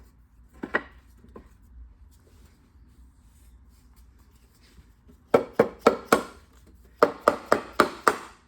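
Wooden playpen post being knocked down onto its dowels: two runs of quick, sharp wood-on-wood knocks at about four a second, the first halfway through and the second, longer one near the end.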